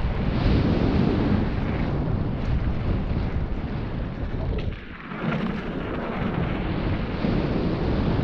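Wind buffeting the rider's microphone and mountain bike tyres rolling over dirt trail during a fast descent, a steady heavy rumble. The rumble dips briefly about five seconds in, then comes back.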